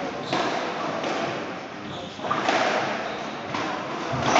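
Squash rally: the ball struck by rackets and knocking off the court walls a few times, the last knock the loudest, over a low murmur of spectator chatter.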